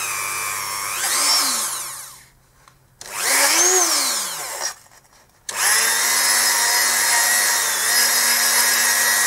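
Dremel rotary tool running with a small brush bit, scouring corrosion and muck out of the bottom of a motorcycle front brake master cylinder bore. It runs in three spells: two short ones whose whine rises and falls in pitch, then a steady run of about four seconds from the middle on.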